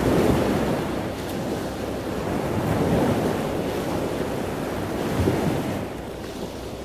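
Ocean surf washing in, a steady hiss that swells and falls every couple of seconds.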